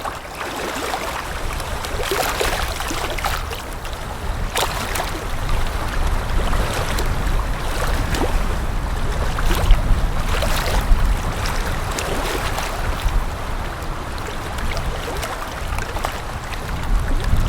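Water lapping in small, irregular splashes, with wind making a steady low rumble underneath.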